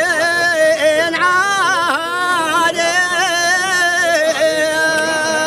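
A man's solo chanting voice, drawn out into long held notes that waver and bend in pitch, in the manner of traditional Arabic chanted verse.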